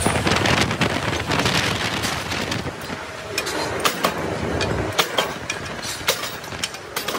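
Powered steel rolling machine running with a continuous metallic clatter, while a red-hot steel blank is handled on its steel table; from about three seconds in, sharp metal clanks come at irregular intervals.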